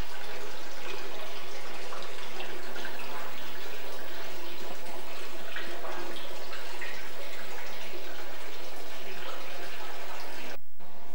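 Water running steadily from the spouts of a stone wall fountain and splashing into its basin, with a brief break near the end.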